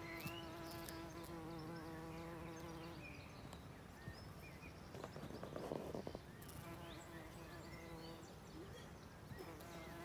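Common carder bumblebee buzzing: a faint, steady hum that stops about three seconds in and returns for a couple of seconds later on.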